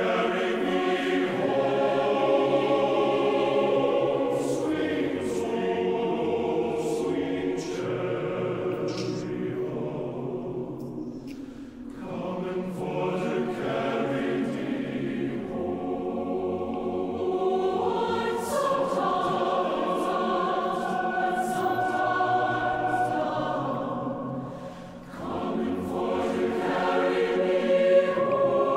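A choir singing slow choral music in long, sustained phrases, with brief breaks between phrases about twelve and twenty-five seconds in.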